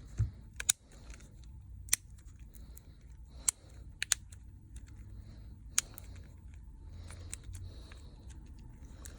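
Irregular sharp clicks and taps of a smartphone's parts being handled and fitted together, about a dozen spread unevenly, with soft scraping between them.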